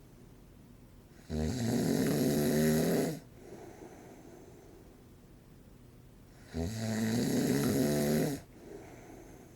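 A man in his forties snoring in his sleep: two loud buzzing snores, each nearly two seconds long and about five seconds apart, with softer breathing between them.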